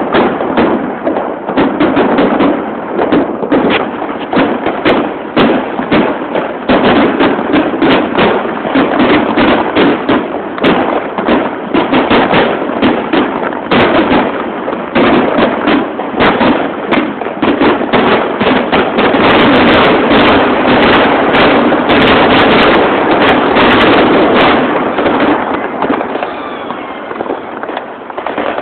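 New Year's fireworks going off in a dense, rapid run of bangs and crackles, building to a nearly continuous barrage about two-thirds through and thinning out near the end.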